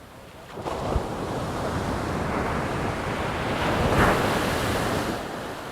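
An ocean wave surging in and breaking on the shore, building from about half a second in to a peak about four seconds in, then easing off near the end.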